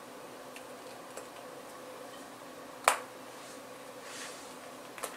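One sharp plastic click about three seconds in, with a smaller click near the end and fainter ticks early on, as the clips of a flexible 3D-printed plastic case snap over the edges of an HTC 8X phone.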